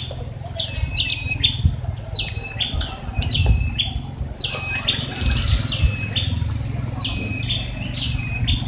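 A bird calling over and over, short high calls that each dip in pitch and rise again, about two a second, over a steady low rumble.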